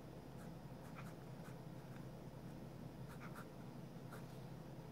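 Pen writing on lined notebook paper: faint, irregular scratches of short pen strokes over a low steady hum.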